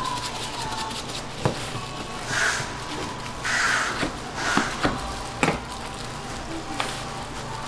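Short raspy squirts from a plastic squeeze bottle sputtering sauce over gimbap rolls, and a kitchen knife chopping through the rolls onto a wooden cutting board in a few sharp knocks.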